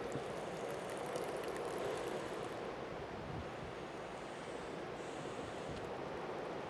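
Steady rushing of blizzard wind with ocean surf, an even noise with no distinct events.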